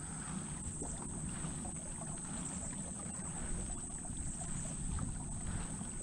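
Water swishing along the hull of an Old Town Topwater PDL pedal-drive kayak moving steadily through calm water, with faint scattered ticks.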